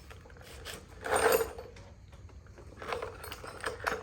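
Hand tools clicking and clattering against metal engine parts while a rocker arm is adjusted on the valvetrain. A louder burst of rattling comes about a second in, with scattered clicks after it.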